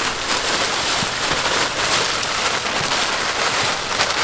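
Clear plastic bags and noodle packet wrappers crinkling and rustling steadily as several people unwrap them by hand, a dense crackle of many small ticks.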